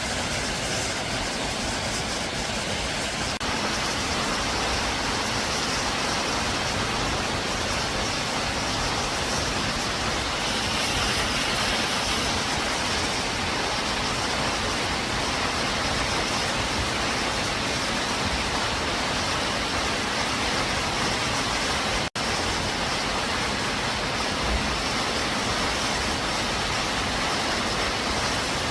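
Waterfall running: a steady, even rush of falling water, cut off for a split second about 22 seconds in.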